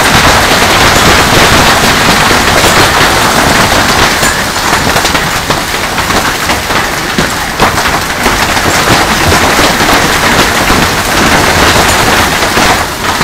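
Heavy hailstorm: a dense, loud clatter of countless hailstones striking the pool water and the hail-covered ground, easing a little after about four seconds.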